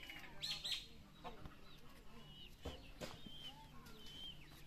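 Domestic chickens clucking and calling, with repeated short high chirps that fall in pitch. A few soft knocks are heard about a second and a half in and near three seconds in.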